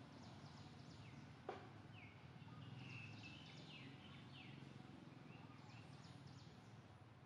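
Near silence: faint outdoor ambience with a few faint, short, high chirps, some gliding down, between about two and five seconds in, and one sharp click about a second and a half in.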